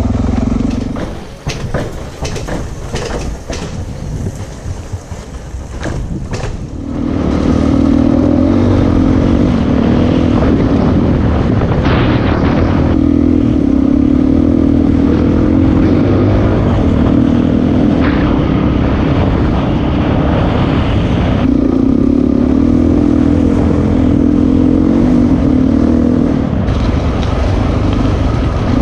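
Single-cylinder Suzuki dual-sport motorcycle engine on a rocky trail. For about the first seven seconds it runs quieter, with clattering knocks from the stony ground. Then it runs loud and steady under throttle, its note stepping up and down a few times.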